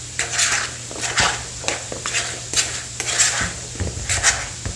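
A utensil clinking and scraping against a mixing bowl while tossing seasoned potato chunks to coat them, in repeated knocks about two or three a second.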